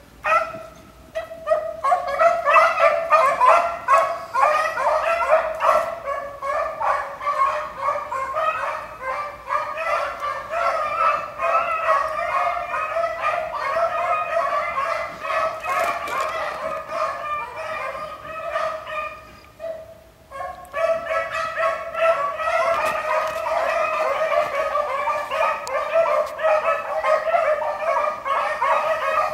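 A pack of beagles baying on a rabbit's trail, many voices overlapping in a continuous chorus, with a brief lull about twenty seconds in before the baying picks up again.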